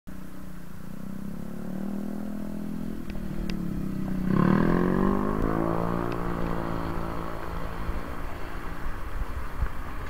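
A motor vehicle engine idles, then about four seconds in rises quickly in pitch and gets louder as it pulls away, and keeps running steadily after that.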